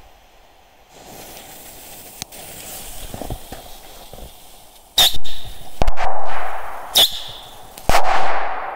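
Small firework rockets going off one after another: four sharp bangs within about three seconds, starting about five seconds in, each fading out over most of a second.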